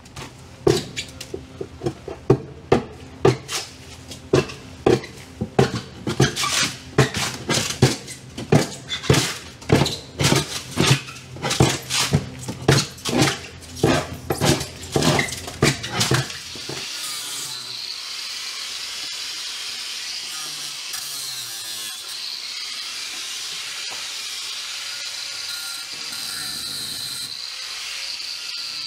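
Sharp knocks, about two a second, from hand tools working the rotten plywood on a fiberglass boat wall. About sixteen seconds in they give way to an angle grinder running steadily against the wall, a high whine with grinding hiss.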